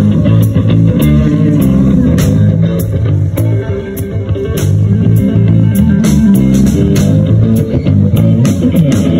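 Rock band playing an instrumental passage: electric guitar and bass guitar over a drum kit, with cymbal strikes marking a steady beat.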